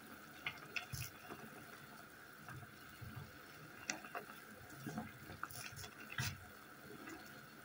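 Water boiling in a stainless steel pot with apple pieces and herbs, giving a faint steady bubbling hiss. A wooden spoon stirs and presses in the pot, and light pops and clicks come at irregular moments.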